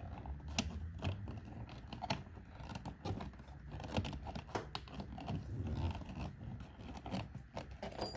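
Irregular clicks, taps and rustling of a plastic car interior trim panel being handled and pressed back onto its clips.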